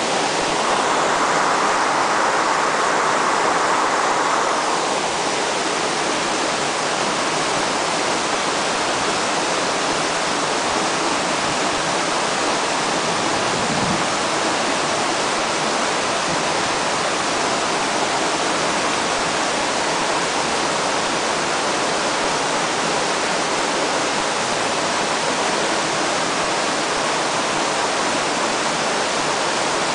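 River current rushing steadily, a constant hiss of moving water, a little louder for the first few seconds.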